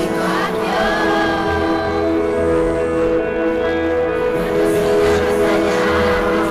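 Slow ballad music with long held notes and a singing voice.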